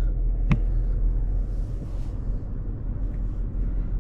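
Wind buffeting the microphone, a steady low rumble, with one short click about half a second in.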